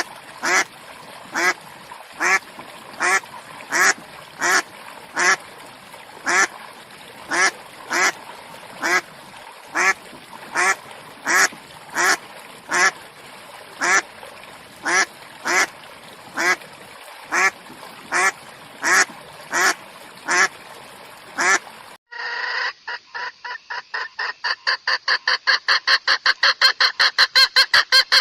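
A duck quacking over and over, single quacks a little under a second apart. About three-quarters of the way through the sound cuts to a rapid run of bird calls, about five a second, getting louder.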